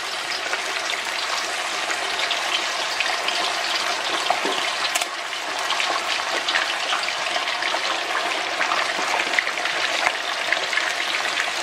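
Chicken legs deep-frying in hot vegetable oil in a wok: a steady, dense crackling sizzle as the oil bubbles hard around the freshly added pieces.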